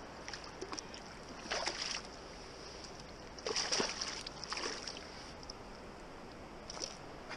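Several short splashes as a hooked trout is grabbed by hand in shallow river water, the loudest near the middle, over the steady rush of the river.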